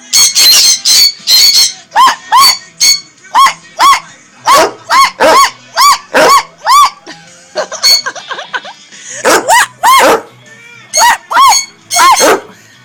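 Sun conures screeching: a long run of loud, harsh, short calls, about two a second, with a couple of short pauses.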